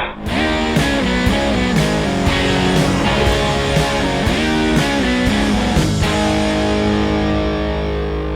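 Intro music: distorted electric guitar rock with a steady beat.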